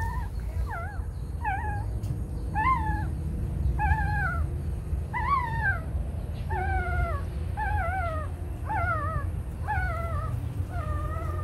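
A puppy whimpering: a string of short, wavering high whines, about one a second, over a steady low rumble.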